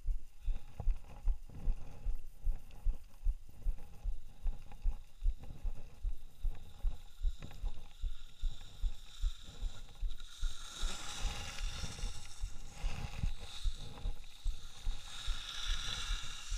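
Skis running down a snowy piste, heard from the skier's own camera: dull low thumps about twice a second. From about ten seconds in, a louder hiss of ski edges scraping the snow in turns joins them.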